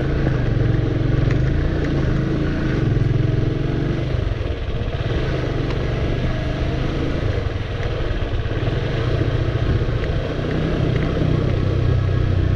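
Motorcycle engine running steadily while the bike is ridden along, its note easing off briefly twice, about four and a half and ten seconds in.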